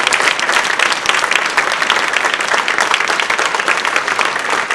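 Banquet audience applauding steadily: a long round of sustained clapping given as a tribute in place of a moment of silence.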